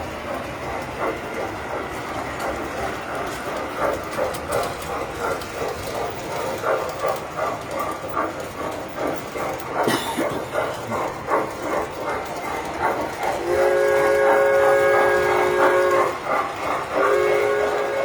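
Tinplate model trains running on the layout's track, wheels clicking over the rail joints, then a layout train's whistle blown for a couple of seconds about two-thirds of the way in and again near the end, a held chord of several tones.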